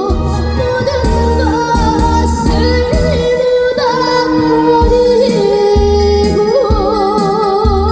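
A female trot singer singing live over music with a steady bass beat, holding long notes with wide vibrato near the end.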